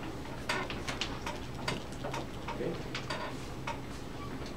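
Light, sharp clicks and taps at an uneven pace of about two to three a second, over a steady low room hum.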